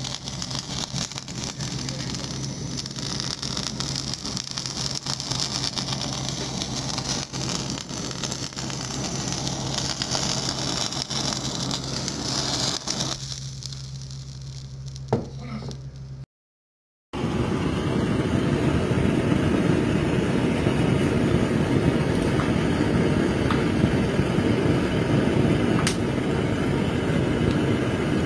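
Butane blowtorch flame hissing steadily as it sears sliced raw fish, over a steady low hum; the hiss stops about halfway through. After a brief silence, a louder, steady rumbling noise takes over.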